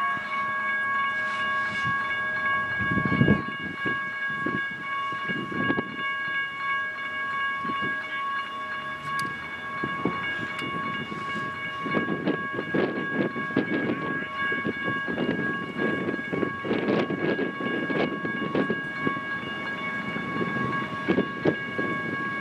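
Freight train heard out of sight: a steady high whine of several tones over an uneven rumble. Some of the tones drop out about eight seconds in, and the rumble grows louder from about twelve seconds in.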